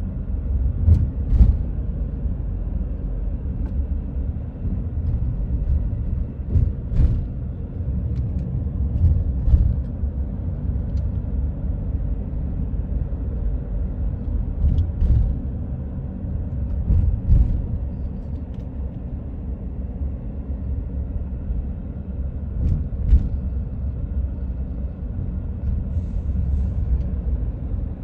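Steady low road rumble of a car driving, heard from inside, with a few faint clicks scattered through.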